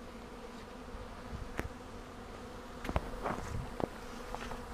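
A swarm of honeybees buzzing around an open hive, a steady droning hum, with a few short clicks from handling.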